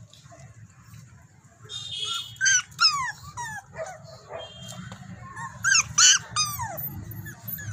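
Pomeranian puppies whimpering and yipping: short, high-pitched cries that slide down in pitch, coming in a quick run a couple of seconds in and another near the end, over a steady low background hum.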